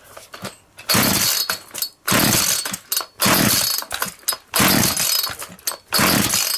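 McCulloch Mac 441 two-stroke chainsaw being pull-started: five quick pulls of the recoil starter cord, about one a second, each a rasping whirr that falls away as the engine turns over. The engine does not catch; it has spark and fuel but is not firing.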